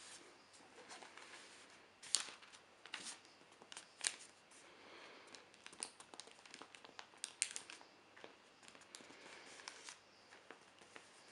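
Hands handling a newsprint newspaper, rustling and crinkling the paper with irregular sharp crackles.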